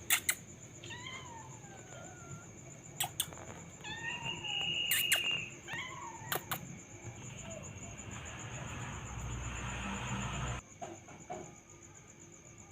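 A cat meowing about four times in short rising-and-falling calls, mixed with a few sharp clicks.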